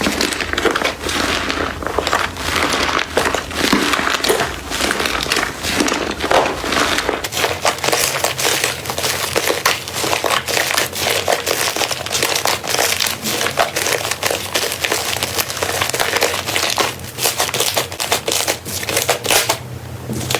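Slime being squeezed, pressed and poked by hand: a dense, continuous run of crackling, popping and squishing. The low background changes about seven seconds in, as from one clip to the next.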